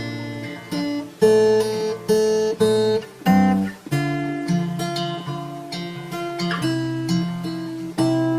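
Instrumental music: guitar chords struck in a steady rhythm, with no singing.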